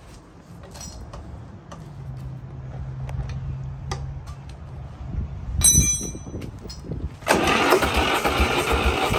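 Diesel engine turning over and running with a low hum that grows louder, and a brief high squeal about six seconds in. Loud background music comes in about seven seconds in.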